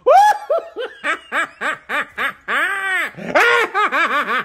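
A person laughing in a fast run of short, high-pitched giggles, about four a second.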